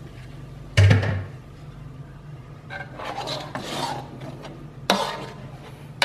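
Metal spatula scraping and stirring chili paste around a steel wok as it is sautéed. There is a loud knock about a second in, another sharp knock near the end, and a low steady hum underneath.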